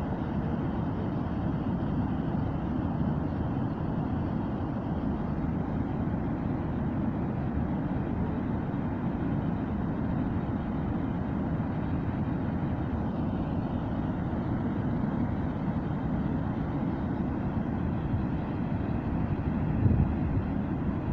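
Wide curtain waterfall pouring into a river pool: a steady, deep rush of falling water. A brief low bump sounds near the end.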